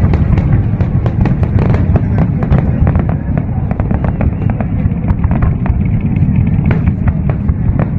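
Fireworks display going off: a continuous low rumble of bursts with many sharp pops, several a second.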